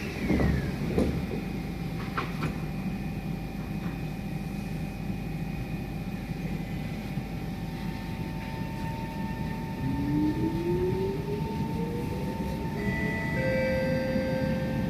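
Steady hum inside an SMRT C151 metro train carriage, with a few knocks in the first couple of seconds. About ten seconds in, the traction motors start a whine that rises in pitch as the train pulls away and then levels off.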